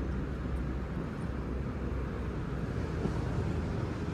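Steady low rumble of a vehicle engine running.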